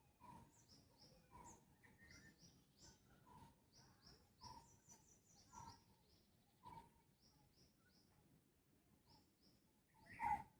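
Faint birdsong from more than one bird: one repeats a pair of high chirps about once a second, another gives a short lower note at a similar pace. One louder note comes near the end.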